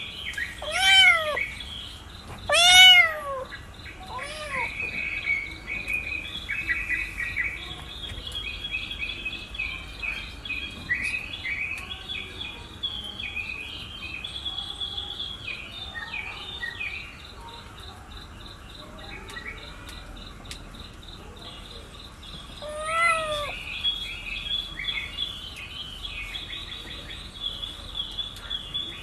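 Kitten meowing: two calls in the first three seconds, the second the loudest, a fainter one soon after, and another about 23 seconds in, each rising then falling in pitch. Beneath them runs continuous high-pitched bird chirping.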